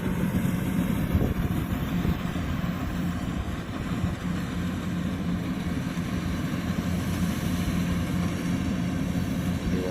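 Kubota DC105X combine harvester running steadily, its diesel engine and threshing machinery giving an even drone with no change in pitch.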